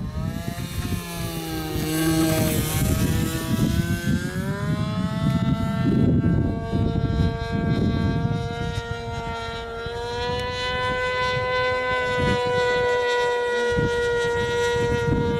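10 cc nitro glow engine of a Depron RC plane running in flight, a high, buzzing propeller note. Its pitch dips and climbs again in the first few seconds, then holds steady and high.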